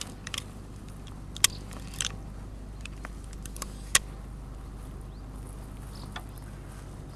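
A handful of sharp, separate clicks from a carp rod's spinning reel being handled before a cast, the loudest about a second and a half in and about four seconds in, over a steady low hum.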